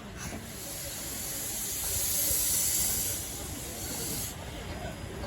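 A 15-inch gauge steam locomotive, Spitfire, blowing off steam in a loud hiss that builds to a peak and then cuts off suddenly about four seconds in.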